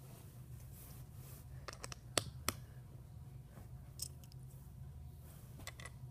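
Plastic Lego bricks clicking as they are handled and pressed onto a Lego baseplate: a few sharp clicks, the two loudest about two seconds in, with more around four seconds and near the end. A low steady hum runs underneath.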